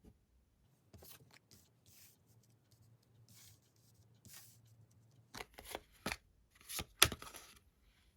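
Tarot cards being handled and shuffled: soft rustling and sliding at first, then a run of sharper card snaps and slaps in the last few seconds, the loudest about seven seconds in.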